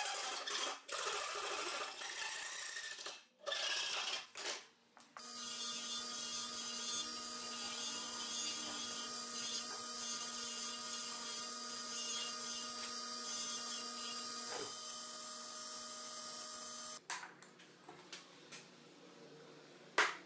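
A fine-toothed Japanese pull saw cuts into wood in several rasping strokes. About five seconds in, a Craftsman 1/2 HP belt/disc sander starts and runs with a steady hum while a piece of ash is sanded on its disc. It stops about seventeen seconds in, and a single sharp click follows near the end.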